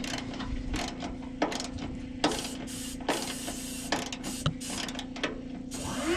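Hand ratchet wrench clicking in irregular runs while bolts on the truck's side cowl panel are worked loose, over a steady low hum.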